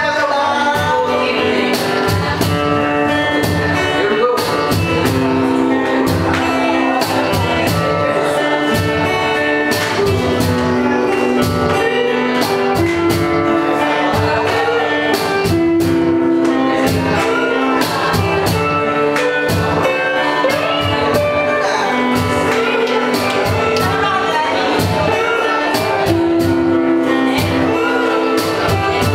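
A live rock band playing: a steady drum beat under held guitar and keyboard-like chords, with singing.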